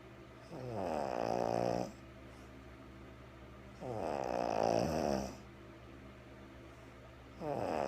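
A woman with a cold snoring in her sleep: two full snores about three seconds apart, each lasting about a second and a half, and a third starting near the end.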